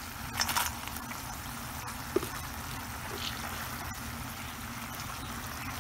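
Thick gochujang sauce boiling in a pan: a steady bubbling hiss. A brief louder burst of hiss comes about half a second in, and a sharp click about two seconds in.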